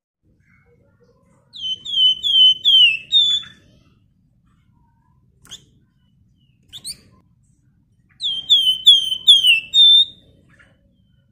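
Flamboyan (wergan Jawa) songbird whistling two quick phrases of about five down-slurred notes each, the first about a second and a half in and the second near eight seconds in, with a couple of short, sharp high calls between them.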